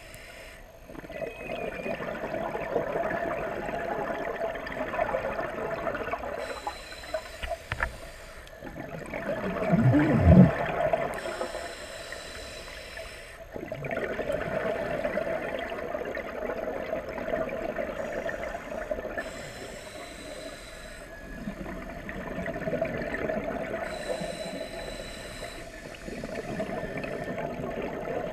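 Scuba diver breathing through a regulator, heard underwater. A hissing inhale returns about every five to six seconds, alternating with longer bubbling exhales. The loudest rush of bubbles comes about ten seconds in.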